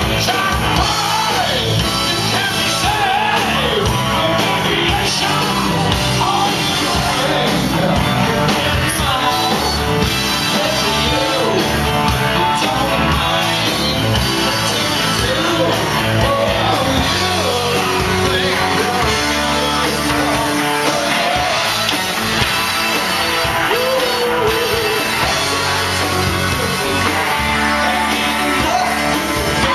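Live rock band playing in a bar: electric guitar and drums, with a man singing lead.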